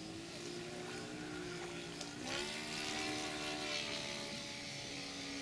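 Radio-controlled model airplane flying overhead, its motor and propeller running at a steady pitch that climbs sharply about two seconds in.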